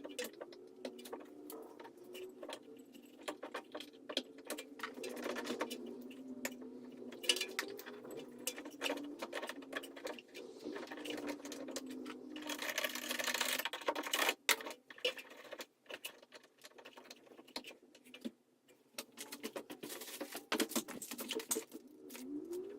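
Metal hand tools clicking and rattling during rear brake work, with a stretch of hiss lasting about two seconds, just past the middle.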